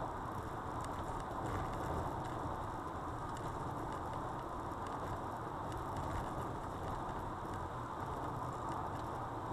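Steady road and tyre noise inside the cabin of a car driving at highway speed, with faint scattered ticks and rattles.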